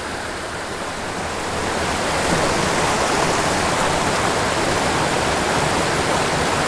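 Small mountain stream rushing over rocks in a riffle, a steady wash of water that grows louder about two seconds in.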